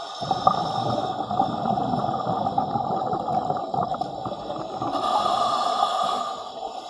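A diver breathing underwater: exhaled bubbles gurgle and crackle for about five seconds, then a steadier hiss comes in before it eases off near the end.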